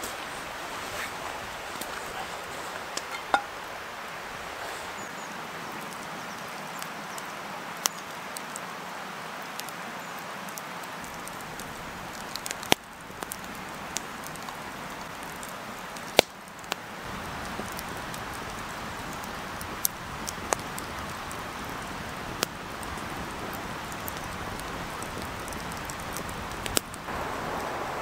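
Turkey sausages sizzling in a frying pan over a campfire: a continuous hiss with scattered sharp pops.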